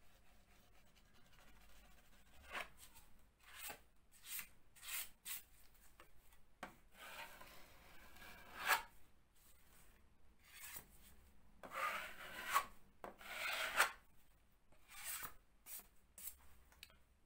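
Steel filling knife scraping across plasterboard, spreading and smoothing filler over a plug repair in a series of irregular strokes, with a few longer, louder passes about halfway through.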